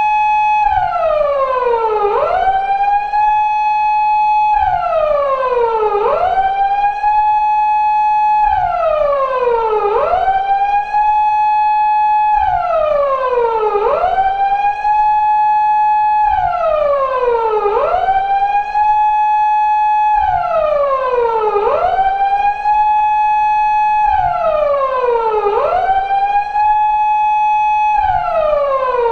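Japanese police car siren of the 2000s type used on 170- and 180-series Toyota Crown patrol cars, wailing in a slow cycle about every four seconds. Each cycle climbs quickly to a high note, holds it, then slides down before rising again.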